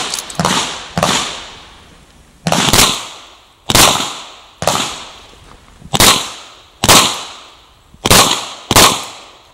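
.38 Special Chiappa Rhino revolver firing a course of fire: about ten sharp shots, most of them in quick pairs about half a second apart, with pauses of one to one and a half seconds between pairs.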